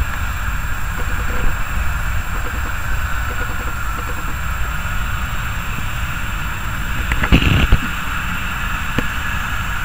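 Boeing 737-800's CFM56 jet engines running at low taxi power, a steady whine and hiss over a low rumble. A brief, loud knock and rumble comes about seven seconds in.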